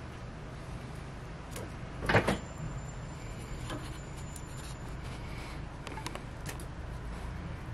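A short rattling knock about two seconds in, over a steady low background hum, with a few faint clicks.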